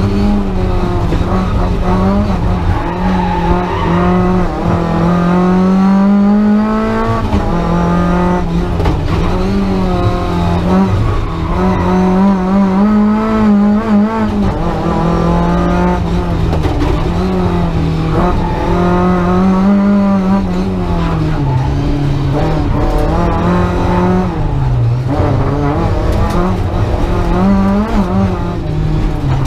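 A Lada 2107 rally car's 1.3-litre four-cylinder engine, heard from inside the cabin, pulling hard and revving up and down again and again as the driver changes gear.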